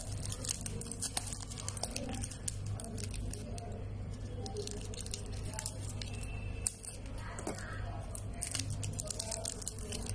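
Plastic wrapper on a stick of modelling clay crinkling and tearing as it is slit and peeled off: a run of small irregular crackles, with one sharper click about two-thirds of the way through.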